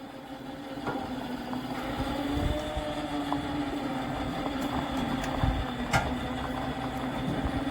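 Electric winch motor running with a steady hum, hauling a ride-on mower with seized parts and a flat tyre up a loading ramp, with a low rumble and a few light knocks.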